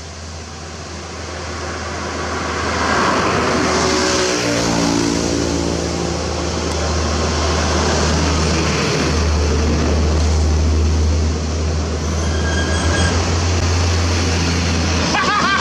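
Isuzu Giga FVZ heavy truck's diesel engine passing close by under load, hauling an excavator on its self-loader bed. The rumble builds over the first few seconds, its pitch falls as the truck goes past about four seconds in, and then a deep steady engine drone carries on from heavy traffic following behind.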